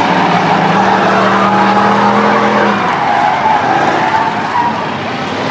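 Race car engines running on a short oval track, with tyres squealing. A steady engine note holds for about the first three seconds, then drops away.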